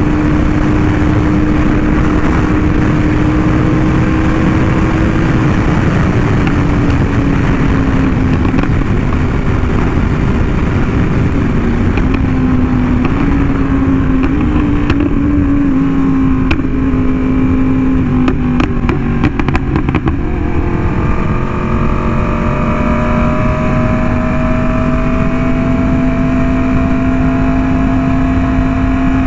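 Yamaha R1M's crossplane inline-four through an SC Project exhaust, running at fairly steady revs while riding, with loud wind rush over the microphone. The engine note sags a little through the middle, a quick run of sharp clicks comes about two thirds through, and then the note holds steady.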